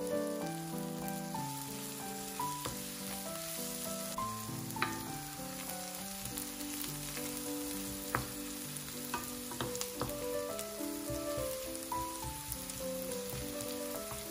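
Sliced onions sizzling in hot oil in a non-stick frying pan over high heat, stirred with a wooden spoon, with scattered clicks of the spoon against the pan. Soft background music plays underneath.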